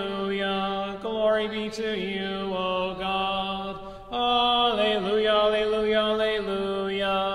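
A voice chanting a Byzantine-rite liturgical refrain in long held notes, with short breaths about one second and about four seconds in.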